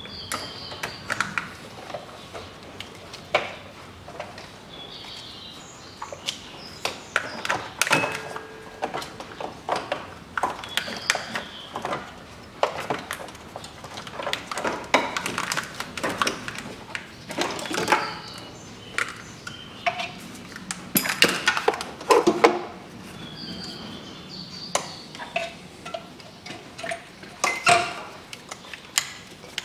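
Irregular clicks, knocks and rattles of plastic connectors and wiring-harness clips being handled and unclipped in a car's engine bay.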